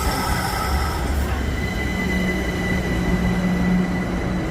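Train running at a station, a steady low rumble with a high steady whine over it; a lower steady hum comes in about two seconds in.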